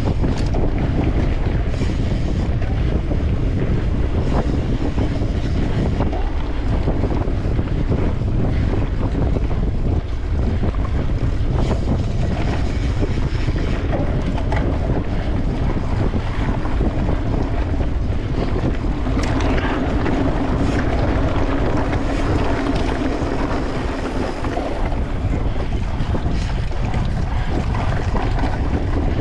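Wind buffeting the microphone of a camera riding on a mountain bike at race speed, a steady rushing roar with scattered clicks and rattles from the bike over the trail. A low steady hum joins in for several seconds after the middle.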